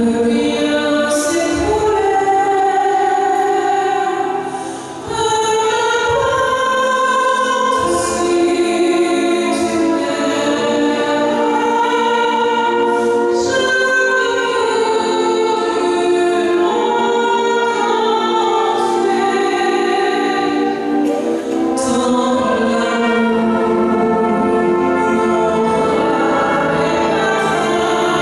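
Concert band playing a slow passage of held chords that change every second or so, with a few sharp percussion strikes, in a reverberant church.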